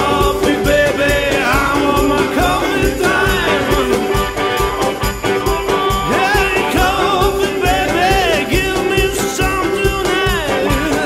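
Acoustic blues-rock band recording in an instrumental stretch: a lead line glides between notes over a steady beat of low drum thumps and jingling percussion.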